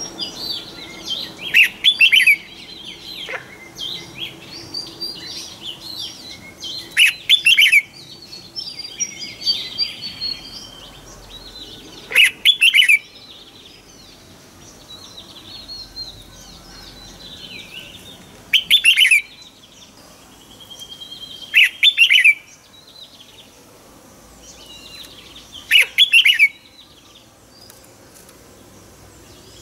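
Red-whiskered bulbul singing in bursts: six short, loud phrases of quick falling notes, a few seconds apart, with softer chirping between them.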